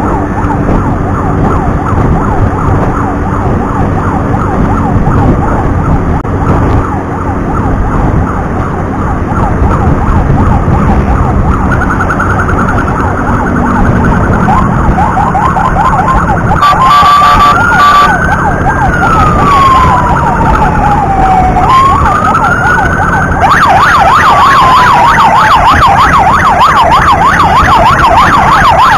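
Emergency siren running in a fast warble over the rumble of engines and road. About two-thirds through, a slow wail sweeps down and back up, and near the end the siren suddenly becomes louder.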